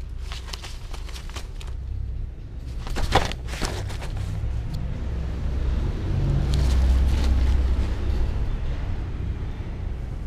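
Loose paper rustling, with a few knocks, as a kitten plays among the sheets; the loudest rustle comes about three seconds in. Under it runs a steady low rumble that swells for a couple of seconds near the middle.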